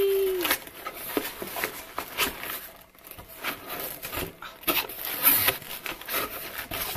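Cardboard box flaps being pulled open and plastic wrapping crinkling and rustling as a hardcover book is drawn out of the box, with short knocks of the cardboard. A brief falling hummed note from a voice right at the start.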